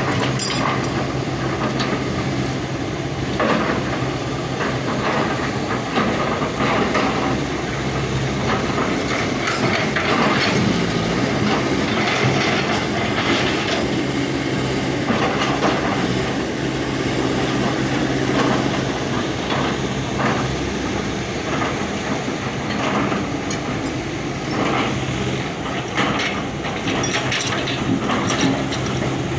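Excavator diesel engine running with irregular clanks, knocks and scraping from the bucket working the ground; the engine's steady low note drops away about two-thirds of the way through.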